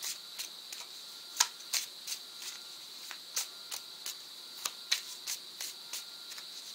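Tarot cards being thumbed through and shifted in the hand: irregular sharp flicks and snaps of card edges, two or three a second, over a steady high-pitched whine.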